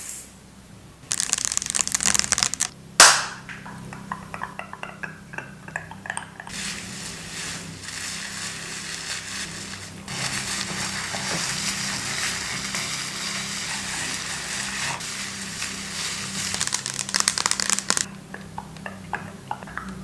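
Hair-care handling sounds: crinkling and scratching in bursts, with one sharp click about three seconds in and a steady hiss from about ten to eighteen seconds.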